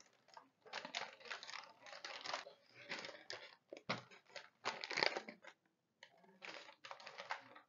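Brown paper sewing pattern faintly rustling and crinkling in short, irregular spurts as it is folded and lifted by hand.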